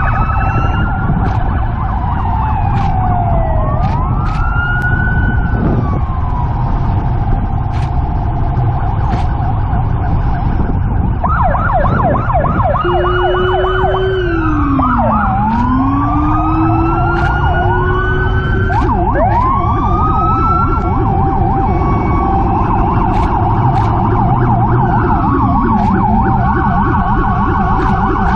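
Several emergency vehicle sirens sounding at once, overlapping slow rising-and-falling wails with a fast yelp in the middle, over a steady low rumble.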